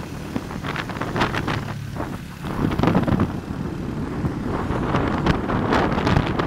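Wind buffeting a phone microphone on a moving motorcycle, in uneven gusts, over the motorcycle's engine running. The gusting gets louder about two and a half seconds in.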